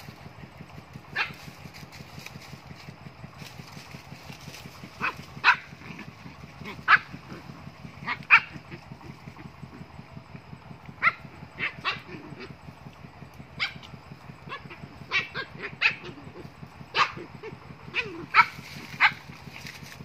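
A dog barking in short, sharp single barks and pairs at irregular intervals, over a steady low motor hum.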